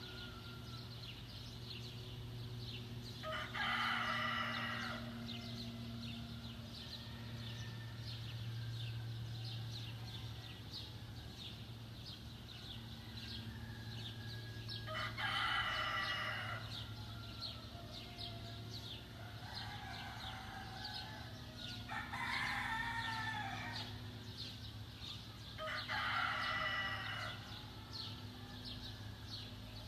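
A rooster crowing about five times, each crow a second or so long, over a steady low hum.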